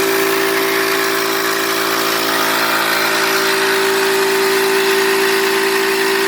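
Twin-cylinder, water-cooled high-pressure PCP air compressor running steadily: an even, loud hum with one strong steady tone over a broad hiss.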